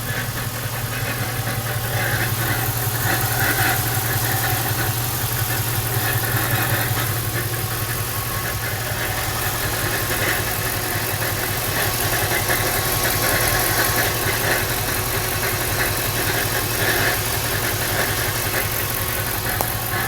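Lincoln LS's 3.9-litre V8 idling steadily with a fast, even rattle. The owner suspects the timing chain tensioner or the coil packs, and thinks it comes from the bottom end.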